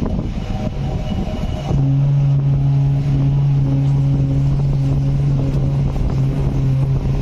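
CNC vertical machining centre running, with mixed mechanical noise at first; a steady low hum with a higher overtone sets in a little under two seconds in and holds.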